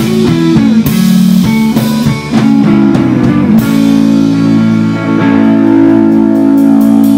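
Live rock band playing an instrumental passage on electric guitar, electric bass and drum kit, with moving guitar notes and drum hits; a little past halfway the band settles onto a long held chord.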